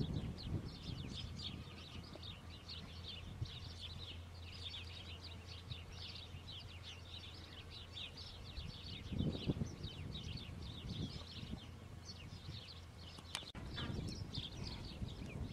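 Many small birds chirping at once, a dense, continuous chatter of short high chirps over a low steady rumble, with a brief low noise about nine seconds in.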